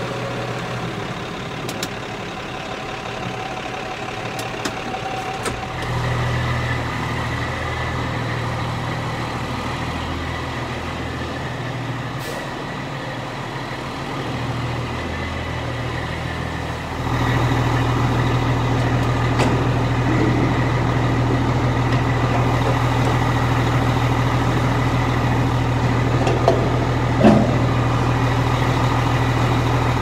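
Diesel vehicle engines running steadily: first a tractor's engine heard from inside its cab, its note changing about six seconds in, then from about 17 seconds in a louder, steady truck engine idling. A sharp clank sounds near the end.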